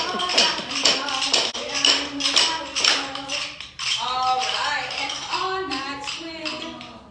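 Rhythmic percussion taps, about three or four a second, with music; about four seconds in the taps give way to a voice singing or chanting.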